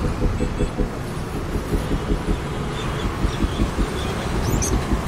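Steady road traffic noise, with small birds chirping near the end.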